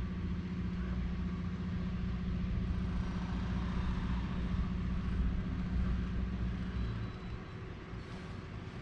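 Electric trolling motor running with a steady hum, easing off about seven seconds in.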